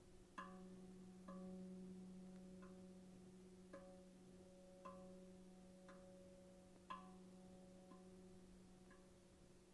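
RavVast steel tongue drum tuned to B Kurd, played softly and slowly with the fingertips: light strikes about once a second, each note ringing on over a low sustained tone.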